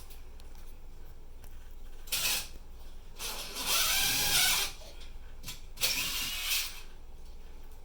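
Three rasping bursts of tool noise. The middle one is the longest and carries a faint wavering whine.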